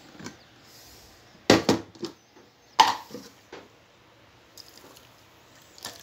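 Hard plastic knocks and clunks as a blender jar is handled and set down: a sharp double knock about a second and a half in and another loud one near the three-second mark. Faint pouring of juice toward the end.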